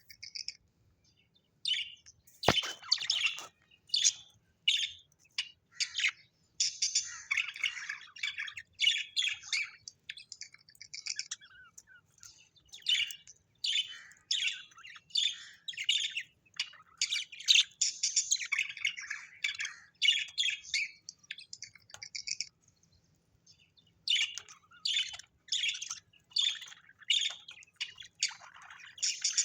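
Small pet parrots chirping and chattering in quick, overlapping bursts of high calls, with a short pause about three quarters of the way through. A single sharp click comes a couple of seconds in.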